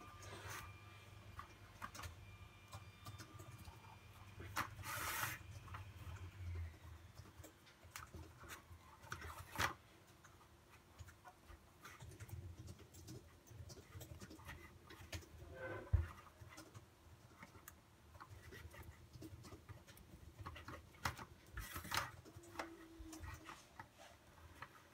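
Drinking straws and pipe cleaners being handled and pushed together: faint rustling and scratching with scattered light clicks and taps, the sharpest tap about two-thirds of the way through.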